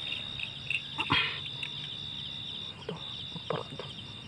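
Night insects trilling in a steady high tone that breaks off for a moment near the three-second mark, with a brief sharp click about a second in and another faint short sound near the end.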